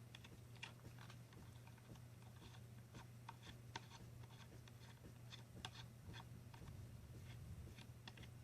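Faint, irregular small clicks and ticks of metal screws and a hand tool as screws are fitted into a rifle bipod adapter, over a steady low hum.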